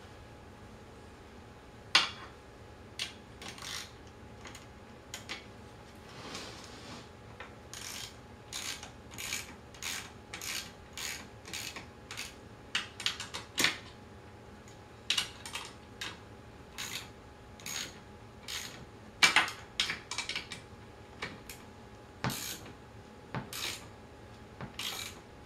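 Hand tool working on the axle bolt of a wheelchair caster wheel in its fork: a run of short metallic clicking and scraping strokes, often one to two a second, with a sharp click about two seconds in and a louder one about three-quarters of the way through.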